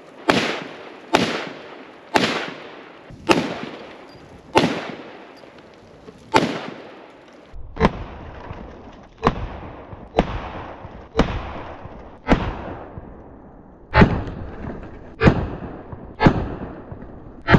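Big Horn Armory AR500 semi-automatic rifle in .500 Auto Max firing a string of single shots, about one a second. Each is a sharp crack with a fading echo.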